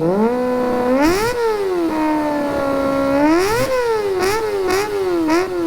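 Kawasaki ZX-25R's 250 cc inline-four revved through an SC Project slip-on muffler. A series of throttle blips: one rise about a second in, a longer held rev in the middle, then several quick short blips near the end, the pitch climbing and falling with each.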